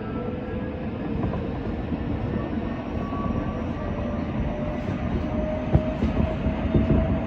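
Odakyu 3000 series electric train running on the line: a steady rumble of wheels on rail, with the traction motor whine rising slowly in pitch as the train gathers speed. A couple of sharp knocks from the wheels over rail joints come near the end.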